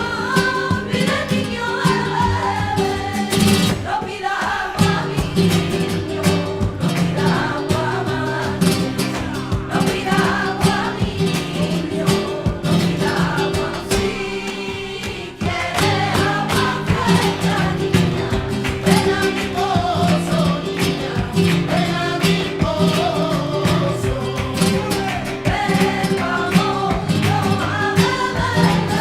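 Flamenco Christmas carol (villancico): voices singing over guitar with a driving rhythm. There is a short lull about halfway through before the song picks up again.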